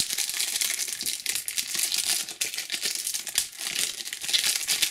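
Wrapper of a Panini Adrenalyn XL trading card packet crinkling and crackling as it is handled and torn open.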